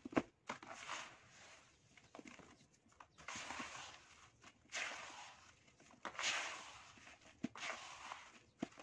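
Dry sandy earth being poured into a plastic tub and then crumbled by hand: grainy hissing and crunching rustles come in repeated swells of about a second each as handfuls are squeezed and broken apart, with a few sharp taps.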